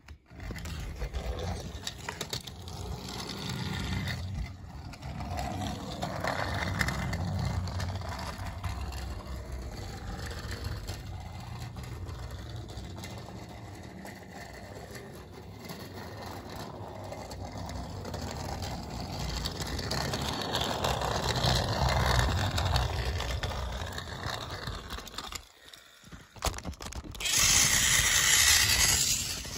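Battery-powered toy train engine running on plastic track: the small electric motor and gears whir while the wheels rattle over the track joints, growing louder and fading as the train comes near and goes away. It is loudest near the end as the engine passes close by.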